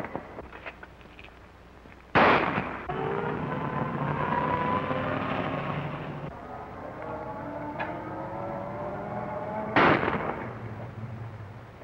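Two gunshots about seven and a half seconds apart, each with an echoing tail, fired at a passing car and hitting its tire. An old car's engine runs between the shots.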